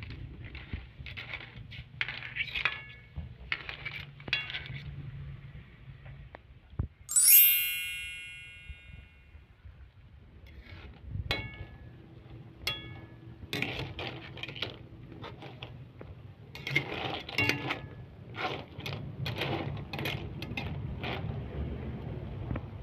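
Clam and cockle shells clinking against each other and the pot as they are stirred with a ladle while they cook, over a low steady hum. One bright chime rings about seven seconds in and fades over a couple of seconds.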